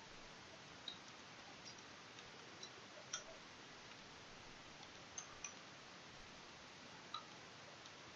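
Near silence: a steady faint hiss with a few scattered soft computer keyboard clicks as text is typed.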